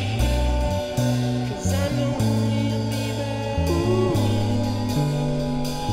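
A band playing a song: drum kit with cymbals, electric guitar and a low bass line that changes note every second or so, with a man singing over it.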